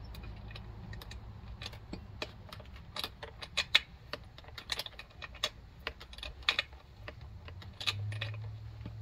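Irregular light metallic clicks and clinks of a spark plug wrench being worked as the spark plug is threaded back into a Chinese chainsaw's cylinder, over a low steady hum.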